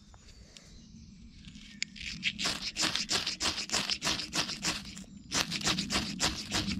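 Ferro rod struck hard and fast with a steel striker to throw sparks into wood-shaving tinder. It makes rasping scrapes about four or five a second, starting about two seconds in, with a short break a little after five seconds.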